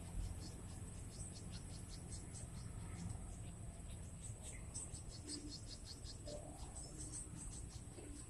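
Faint insects chirping: a steady high trill with short chirps repeating irregularly over it, above a low rumble.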